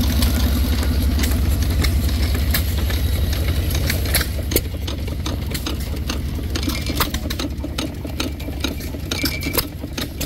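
Small stationary hit-and-miss gas engines running, a steady low chugging with irregular sharp pops and clicks from their firing and valve gear. The sound is louder for about the first four seconds, then a little quieter.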